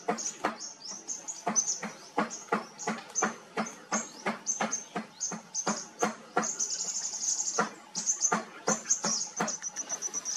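Birds chirping: a steady run of sharp chirps, about three a second, over a high-pitched trilling chatter that swells for a couple of seconds around the middle.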